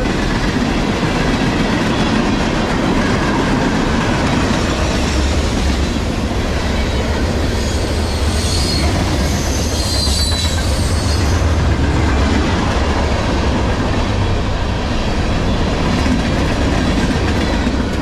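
A freight train's cars rolling past at speed: a steady rumble and clatter of steel wheels on rail, with some high wheel squeal about halfway through.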